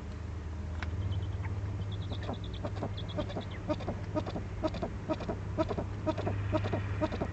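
Eurasian eagle-owls calling at the nest: a quick run of short notes, about three a second, starting about a second in, over a steady low electrical hum from the webcam.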